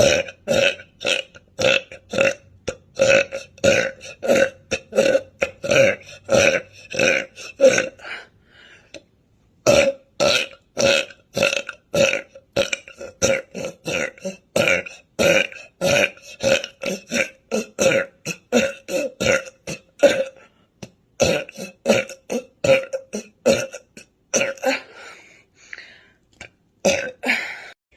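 A woman burping over and over, a long run of short, loud burps at about two to three a second, each at much the same pitch, with brief pauses about eight and a half seconds in and again about twenty seconds in.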